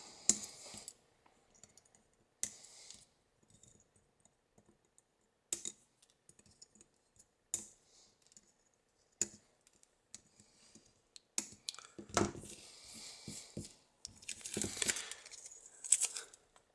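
Flush cutters snipping excess resistor leads off a circuit board: about six sharp snips a second or two apart. Near the end, a few seconds of rustling handling noise as the board is moved.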